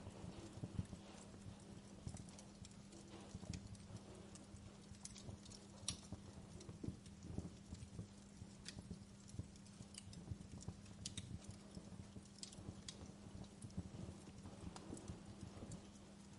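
Wood fire crackling in a fireplace: irregular sharp pops and snaps, several a second, over a soft even hiss of rain and a steady low hum.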